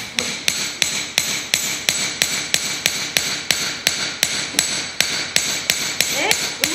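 Ball-peen hammer striking a copper strip laid on a section of steel rail used as an anvil, in quick even blows of about four a second, each with a bright metallic ring. The copper is being beaten into shape for a paper knife.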